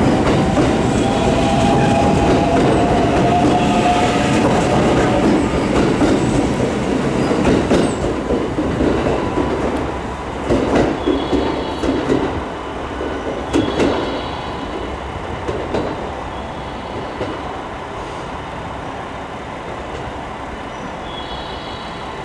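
521 series electric train running along the platform, its motor whine rising slightly at first over loud running noise, then a run of wheel knocks over the rail joints about halfway through. After that there is a quieter steady hum as a train comes in slowly, with a few short high squeals.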